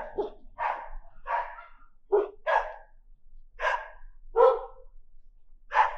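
A dog barking repeatedly, about eight short barks at an uneven pace.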